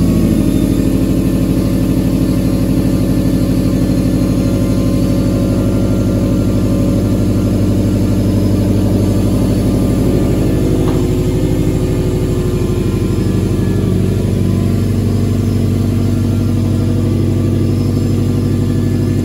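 2017 Subaru WRX STI's turbocharged 2.5-litre EJ257 flat-four boxer engine idling steadily. It is warming up toward operating temperature on freshly changed oil.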